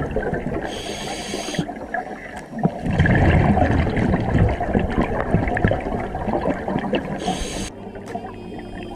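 Scuba breathing heard underwater through the camera: the hiss of a regulator being breathed from, about a second in and again near the end, and between them a long, louder bubbling rumble of exhaled air leaving the regulator.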